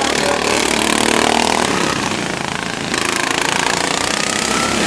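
Modified racing lawn mower engines running hard at high revs, with a dense, rattling mechanical noise. About three seconds in it gets louder, as an engine comes closer.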